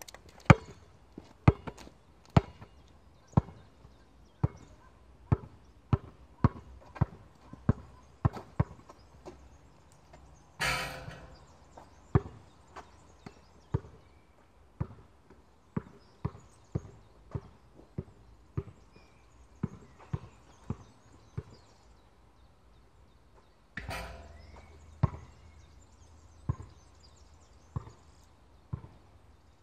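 A basketball being dribbled on a hard court, sharp bounces about once a second. About ten seconds in and again near twenty-four seconds comes a longer, crashing noise lasting about a second.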